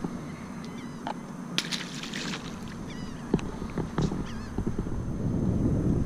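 Bird calls: short, hooked, high calls repeated in small groups every second or so, over a steady low rumble, with a few sharp clicks and knocks.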